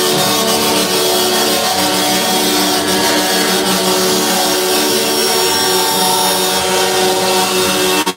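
Several truck air horns sounding together, held as a loud, steady chord of overlapping tones.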